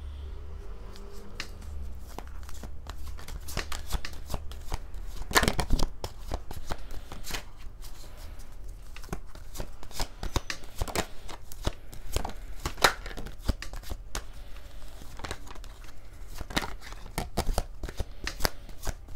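A tarot deck shuffled by hand, a continuous run of soft card flicks and slaps, loudest in a cluster about five and a half seconds in.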